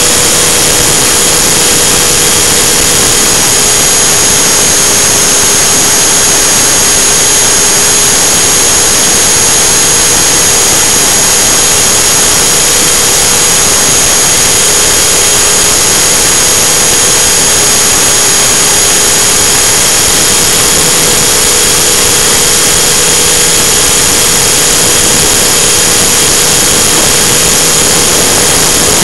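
T-Rex 600 RC helicopter in flight, recorded from a camera mounted on the helicopter: a loud, steady drone of the running drivetrain and spinning rotor, with a constant high whine and a lower hum.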